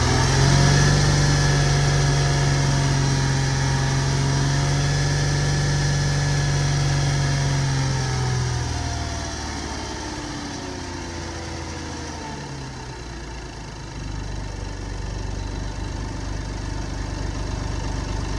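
2006 Lexus IS250's 2.5-litre V6 revved up and held at raised revs for about eight seconds, then dropping back to a lower steady run. The owner suspects the engine is failing from a bad rod or main bearing.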